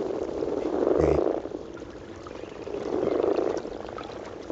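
A spawning chorus of many frogs croaking together, a dense low continuous croaking that swells about a second in and again about three seconds in, with a brief low knock about a second in.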